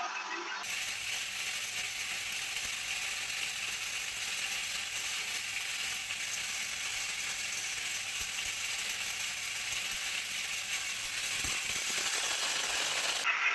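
A running machine's steady mechanical clatter. It cuts in abruptly about a second in and cuts out abruptly near the end.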